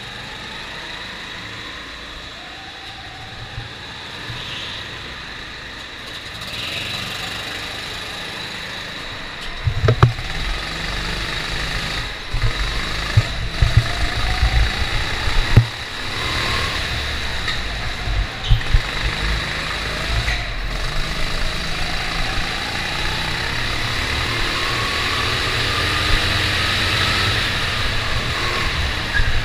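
Go-kart engines running on the starting grid, then the kart's engine revving up as it pulls away about ten seconds in and drives on, its pitch rising and falling through the corners. Several sharp knocks come from the kart as it runs over the track.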